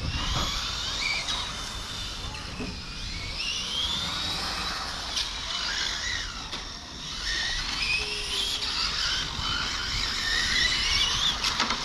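Electric 1/8-scale GT RC cars racing, their brushless motors and drivetrains whining in repeated rising glides as the cars accelerate, over a steady hiss of tyres on the track.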